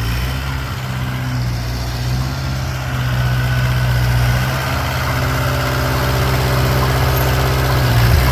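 Old tractor engine idling steadily, getting a little louder about three seconds in.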